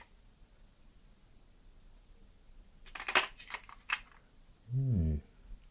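A few sharp clicks and knocks of the dismantled tyre pump's plastic and metal parts being handled, about three seconds in. A short low hum from a man's voice follows near the end.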